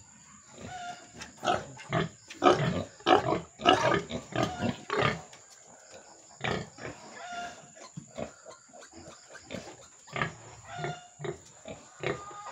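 Pigs, a sow and her piglets, grunting and squealing in quick short calls, thickest in the first five seconds and then more scattered.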